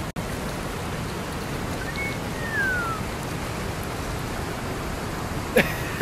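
Muddy flash-flood water rushing steadily down a dry wash, a constant, even rush of noise.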